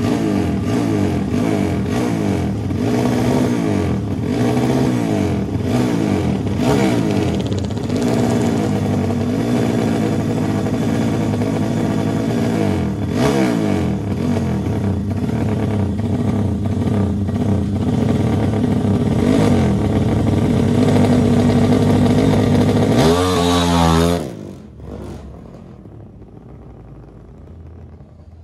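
Honda 300 cc drag-race motorcycle engine running, its revs rising and falling in repeated short blips. Near the end it revs up sharply, then the engine sound stops abruptly, leaving only a quiet background.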